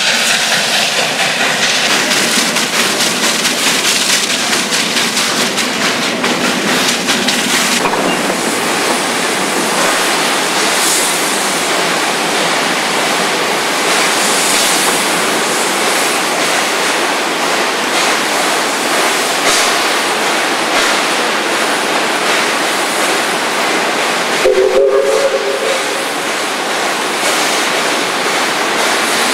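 Steam train running: a steady loud rush of steam and carriage wheels on the rails. About 25 seconds in a brief two-note whistle sounds.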